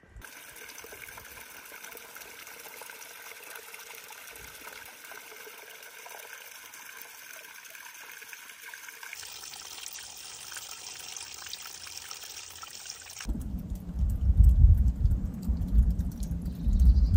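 Small stream of water trickling down a mossy rock face, a steady hiss that turns brighter about nine seconds in. About thirteen seconds in it cuts to a loud, uneven low rumbling.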